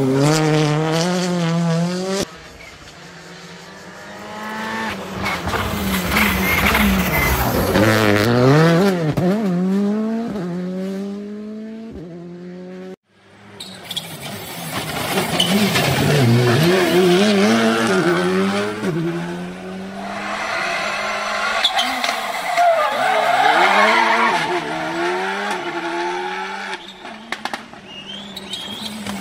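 Rally cars at full speed on a stage, engines revving hard and shifting through the gears, rising and falling in pitch as each car goes by. Several passes follow one another with abrupt cuts, and the sound drops out briefly about halfway through.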